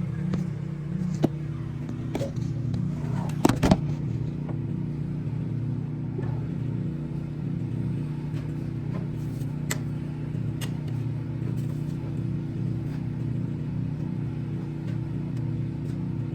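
Car engine idling steadily, with a few sharp clicks about three and a half seconds in.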